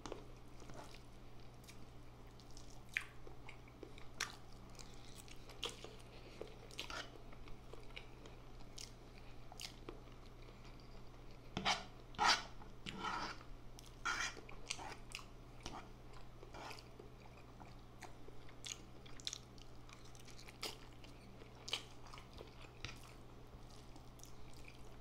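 Close-miked chewing and wet mouth sounds of eating instant noodles: short scattered smacks and clicks, with a louder run of them about halfway through, over a steady low hum.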